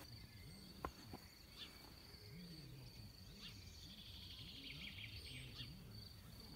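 Faint outdoor ambience: a steady, high, thin insect-like trill with a few faint bird chirps, and a single sharp click about a second in.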